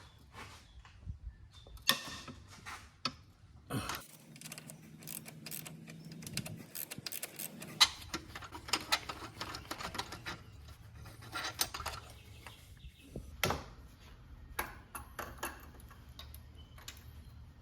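Hand tools clicking and clinking against metal parts during repair work on the engine, in irregular sharp knocks with a few louder clacks.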